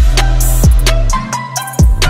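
Hip-hop style background music: a loud beat with deep bass drum hits that drop in pitch, quick hi-hat ticks and sustained synth notes.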